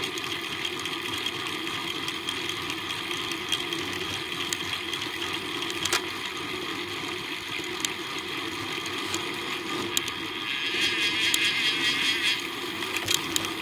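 Steady riding noise picked up by a bike-mounted camera: road-bike tyres rolling on asphalt with wind. Scattered sharp clicks, and a rougher buzzing stretch of about two seconds near the end.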